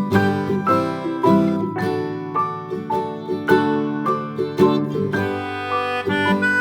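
Background music: a tune on plucked strings, banjo-like, with notes picked several times a second over held chords.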